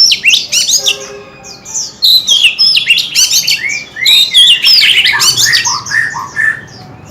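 Oriental magpie-robin singing: a rapid, varied run of clear whistles, chirps and pitch glides, with a brief lull about a second and a half in and some lower notes near the end.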